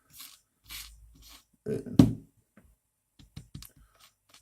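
Hands handling and fitting small plastic parts of a 3D printer extruder assembly: scraping and rustling, a sharp knock about two seconds in, then a run of small clicks.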